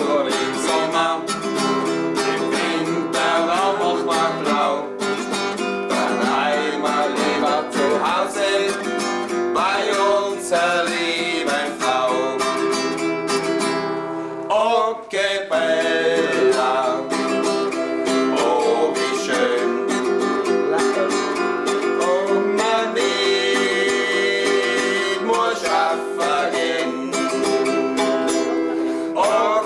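Acoustic guitar strummed as accompaniment while a man sings a German folk song along with it.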